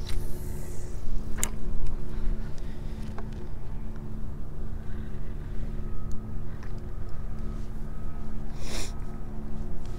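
An engine running steadily at an even pitch, with wind rumbling on the microphone. A few sharp clicks and a short rushing noise near the end.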